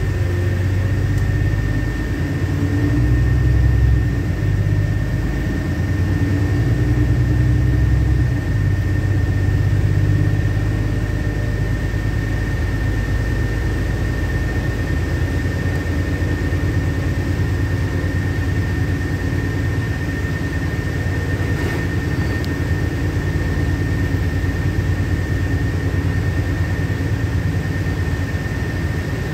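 Engine and road noise heard from inside a LiAZ-5292.65 city bus under way. The engine note is louder and shifts in pitch over the first ten seconds or so, then settles into a steady drone. A thin, steady high whine runs under it throughout.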